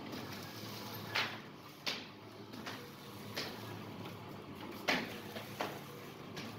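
Salt pouch packing machine running: a steady hum with sharp clacks from its sealing and cutting action, coming in pairs about two-thirds of a second apart, twice.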